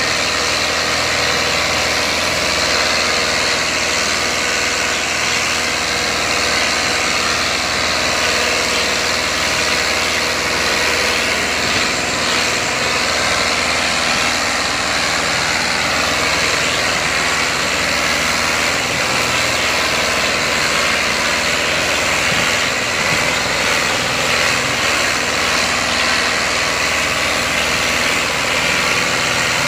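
Diesel engines of two tractors, a New Holland Dabung 85 with an 85 hp four-cylinder and a Ford 4610 with a 60 hp three-cylinder, running steadily under load as they pull a fully loaded sugarcane trailer out of a field.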